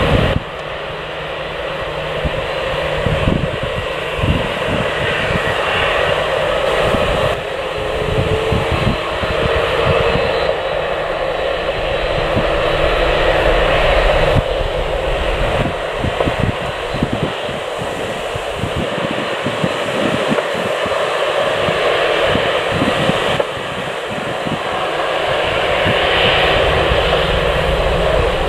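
Jet airliner engines running, a continuous rushing noise that steps abruptly in level a few times. Gusts of wind thump on the microphone throughout.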